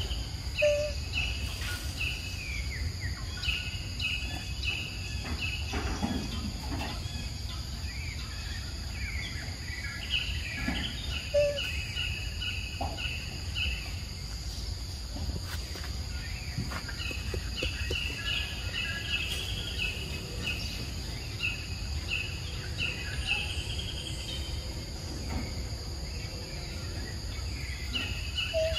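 Forest ambience: a steady high insect drone under repeated bouts of quick, trilled chirping. Two short, louder peeps come about a second in and near the middle.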